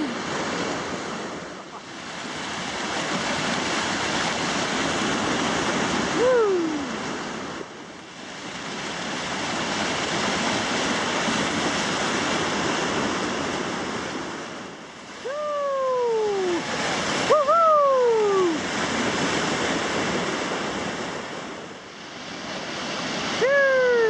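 Whitewater rapids rushing steadily around inflatable kayaks. Short yells from the paddlers slide down in pitch, once about six seconds in, twice around fifteen to eighteen seconds and again at the end.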